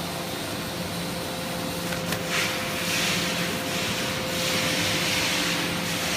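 Rice husk baling machine running: a steady motor hum under a rushing, rubbing hiss that swells twice.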